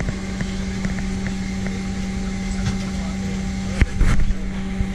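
Steady cabin drone inside a Boeing 767-300ER airliner, with a constant low hum. Just under four seconds in there is a sharp knock followed by a brief clatter.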